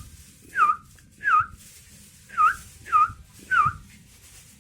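Young sooty-headed bulbul (kutilang) giving a series of five short, clear whistled calls, each note dipping and rising, about half a second to a second apart.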